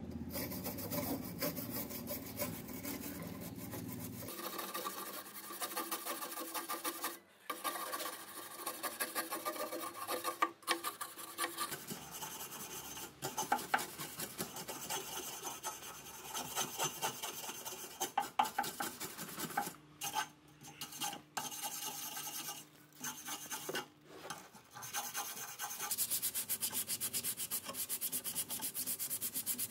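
Wire brush scrubbing rust off the tubular frame of an old iron chair in rapid back-and-forth rasping strokes. The scraping stops short for a moment several times.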